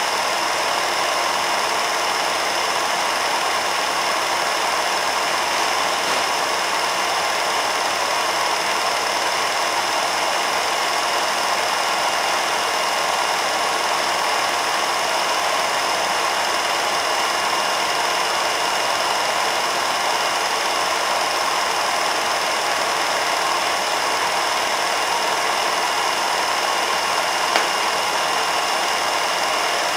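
Home-movie film projector running steadily: an even mechanical running noise with a few constant high tones, and one small click near the end.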